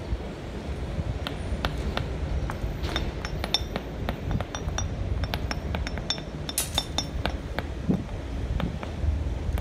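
Stone paving setts clinking and knocking as they are handled and tapped into place with hand hammers: many sharp, irregular clicks, some with a brief high ring, over a steady low rumble.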